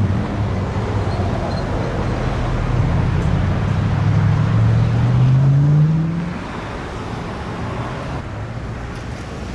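A motor vehicle's engine accelerating, its pitch rising steadily for a few seconds, then dropping away about six seconds in, leaving a steady traffic hum.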